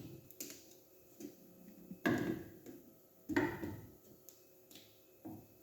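Light knocks and clicks of a cordless drill and screws being handled against wood, with two louder knocks about two and three and a half seconds in.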